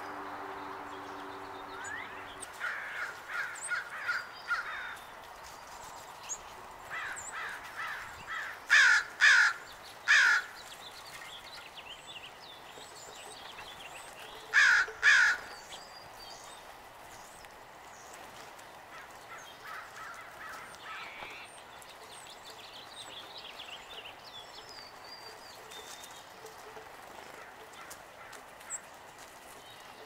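Loud, harsh jay calls, three in quick succession about nine seconds in and two more around fifteen seconds, over softer chirps and short runs of notes from small songbirds.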